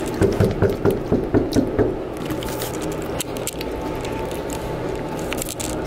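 Knuckles knocking on a dorm room door: a quick run of about eight raps within the first two seconds, then only a steady background hum.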